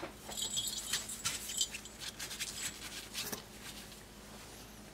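A plastic lattice toy ball jingles for about a second and a half as it is set down and rolls, with scratchy rustling on a cloth backdrop. Quieter scattered rustles follow as a young Pembroke Welsh Corgi puppy shuffles about on the fabric.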